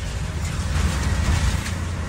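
Auto-rickshaw engine running with a steady low drone, under an even hiss of heavy rain and wet-road noise.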